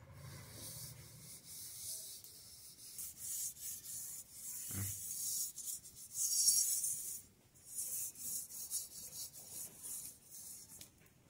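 Hand scrubbing of the outside of a round-bellied metal cooking pot: repeated rasping rubbing strokes, loudest a little past the middle, with one dull knock a little before five seconds in.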